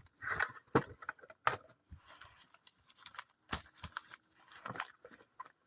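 Scattered clicks, taps and scraping from a sealed box of trading cards being handled and opened.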